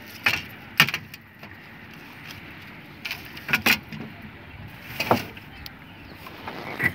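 Scattered sharp clicks and knocks, about seven in all, from a fishing net and paddle being handled against a small boat's bow.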